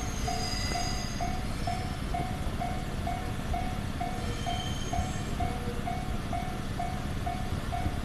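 Japanese level-crossing warning bell ringing steadily at about two dings a second, over the low rumble of a JR Chuo Line train coming through the crossing.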